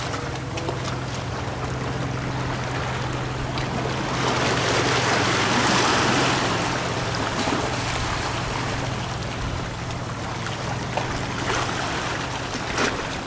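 Waves washing against a rocky shoreline, swelling about halfway through, over a steady low hum.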